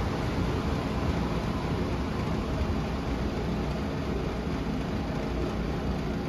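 TEMU1000 Taroko Express electric train running out of the station, a steady low rumble with hiss and no distinct tones or knocks.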